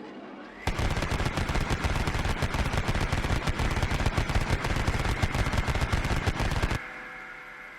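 A rapid, unbroken string of loud, sharp hits lasting about six seconds. It stops abruptly and leaves a fading ring.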